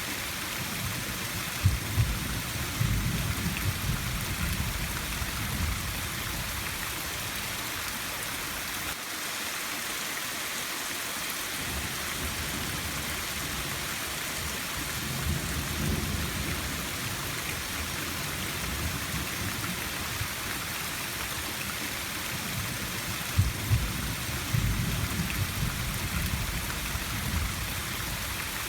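Steady rain hiss, with low rolls of thunder three times: near the start, about halfway through and near the end, each opening with a sharper crack.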